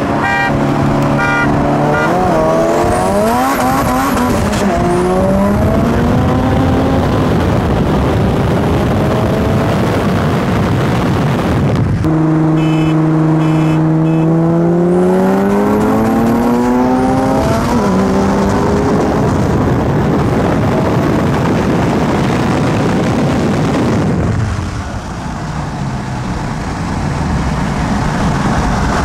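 Cars accelerating hard at full throttle in a street roll race, engines revving up and shifting, so the pitch climbs and drops back with each gear change, with a faint high whistle rising with the revs. About halfway through the sound cuts abruptly to another pull, and near the end the engines ease off.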